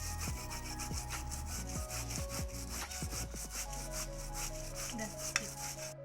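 Fresh ginger root rubbed back and forth on a hand grater covered with a plastic sheet, a steady run of quick, evenly repeated rasping strokes, with background music underneath.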